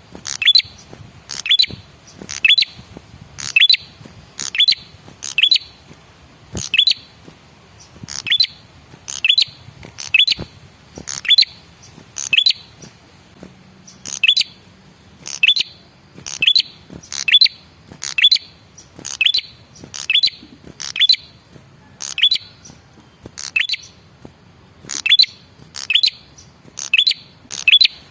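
Male prenjak kepala merah calling a short, sharp, downward-sweeping note about once a second, sometimes doubled. It is a repetitive lure call meant to provoke other birds of its kind to answer.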